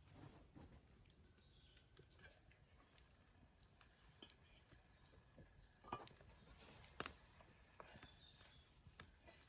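Near silence with scattered faint clicks and light taps, the sharpest about seven seconds in.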